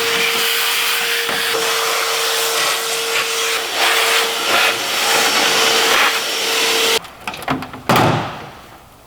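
Vacuum cleaner running with a steady whine as dust is cleaned out of an old toolbox. It cuts off suddenly about seven seconds in, followed by a few knocks and clatter.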